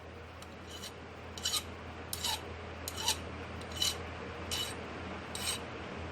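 Hand file rasping across a small brass piece in slow, even strokes, about one every ¾ second, shaping the part. A steady low hum runs underneath.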